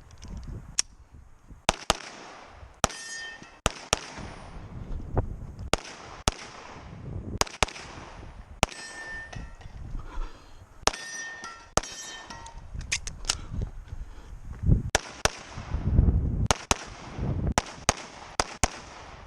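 A string of about two dozen gunshots fired at an irregular pace, roughly half a second to a second apart. Several are followed by a short metallic ring, typical of bullets hitting steel targets.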